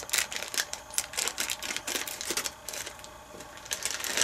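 Scissors snipping open a crinkly blind packet holding a mystery mini figure, and the packaging crackling and rustling as it is handled and pulled apart: a quick, irregular run of clicks and crinkles.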